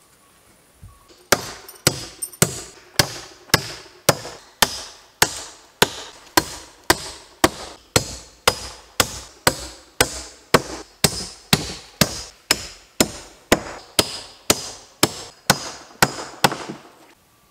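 Hammer driving nails into a wooden board laid on a plank floor: a few quick light taps, then steady blows about two a second.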